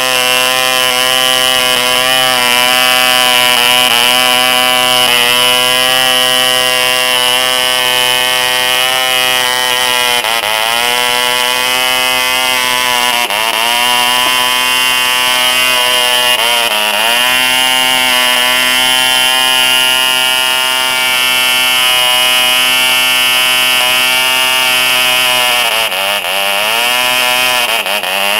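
ED Bee 1cc two-stroke model diesel engine running at high speed with its propeller spinning: a loud, steady, high-pitched buzz. Several times in the later part the speed sags for a moment and then picks back up.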